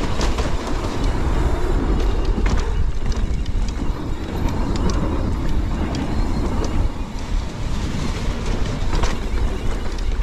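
Mountain bike descending a dirt bike-park trail at speed: steady tyre and wind rumble on the rider-mounted microphone, with scattered clicks and rattles from the bike over bumps.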